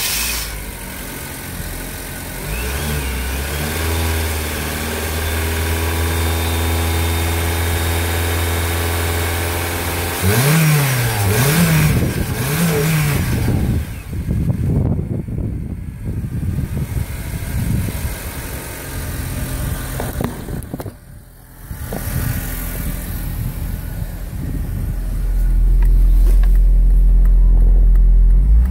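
2007 Honda Civic's four-cylinder i-VTEC engine idling steadily just after starting. About ten seconds in it is revved up and back down three times in quick succession. After that it idles on under a run of irregular knocks, and its low hum grows louder near the end.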